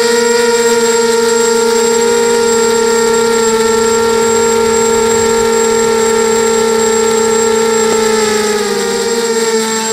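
Whine of a QAV280 FPV quadcopter's motors and propellers, heard from on board: a loud, steady pitched whine. Near the end the pitch dips slightly and it gets a little quieter.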